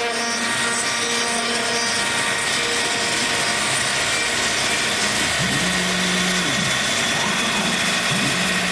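CNC PREMIUM ST machine milling aluminium: the spindle runs steadily, with the hiss of the cutter in the metal. Twice, about halfway through and again near the end, a tone rises, holds briefly and falls back.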